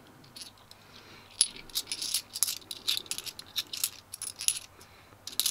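Bimetallic £2 coins clinking against each other as they are shuffled through in the hands: a string of irregular light metallic clicks that starts about a second and a half in.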